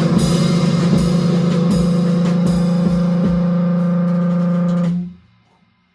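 Drum kit with steady bass drum beats and cymbals under a loud held note from an amplified instrument, all cutting off about five seconds in.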